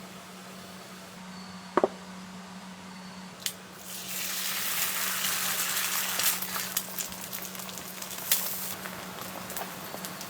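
Food sizzling on a hot cooking surface. The sizzle starts suddenly about four seconds in and runs on with crackles, after a short clink and a click just before.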